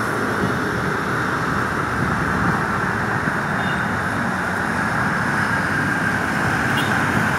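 Steady road traffic noise from cars passing along a multi-lane city boulevard: an even rush of tyres and engines with no single vehicle standing out.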